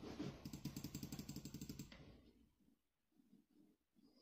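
A quick run of small, faint clicks from a Silvercrest gaming mouse, about ten a second for roughly two seconds, then a few fainter ticks.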